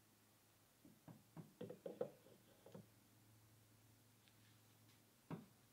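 Hard painted statue parts knocking and clicking against each other as a backpack piece is handled and fitted onto the figure. A quick run of about eight light taps comes early, then one sharper knock near the end.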